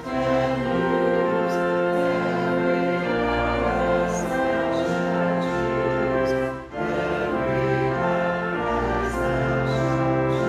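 A church hymn sung by choir and congregation with instrumental accompaniment, in long held chords, with a brief break between lines about two-thirds of the way through.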